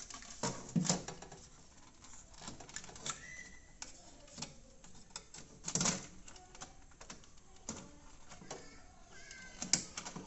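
Irregular clicks and knocks of plastic fridge parts being handled as the wiring connector is plugged onto a replacement thermostat, with a few louder knocks spread through.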